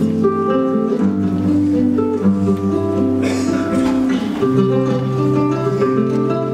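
Acoustic flamenco guitar playing a melodic passage of stepping notes in the alegrías style, with a brief burst of noisier strokes about three seconds in.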